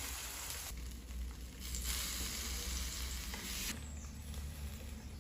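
Food cooking on the stove: a steady sizzling hiss with a low hum under it, changing abruptly twice along the way.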